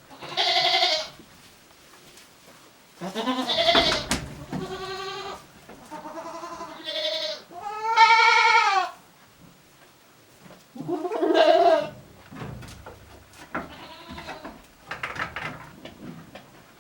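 Goats bleating in their shed: a string of about seven or eight separate wavering bleats at varying pitches, the loudest about eight seconds in, the last few fainter. A single sharp click comes about four seconds in.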